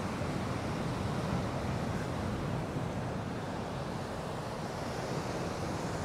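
Steady wash of ocean surf mixed with wind noise on the microphone.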